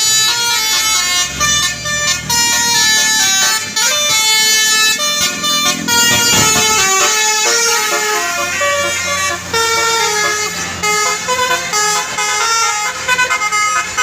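Bus 'telolet' basuri multi-trumpet air horn playing a melody: several horn tones sounding together and stepping up and down in pitch, with a vehicle engine running underneath.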